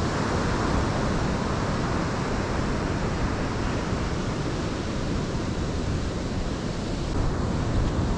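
Ocean surf breaking and washing up a sandy beach, a steady rush of noise, with wind on the microphone.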